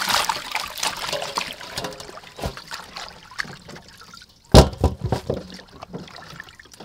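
Water splashing and dripping as hands rinse lettuce and cucumbers in a steel basin, fading out about two seconds in. About four and a half seconds in comes one loud knock with a few lighter ones after it: cucumbers being set down on a steel tray.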